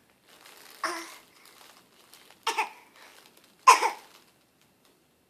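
A small child giving three short, forced fake coughs to get attention, the last the loudest.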